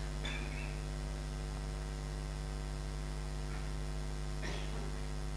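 Steady electrical mains hum: a low buzz with a ladder of evenly spaced overtones, with a faint short rustle about four and a half seconds in.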